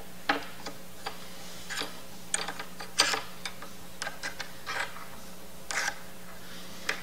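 Allen wrench and a 1/2 inch wrench tightening a bolt and nut on a metal bracket: short, irregular metal clicks and scrapes of the tools as the bolt is turned.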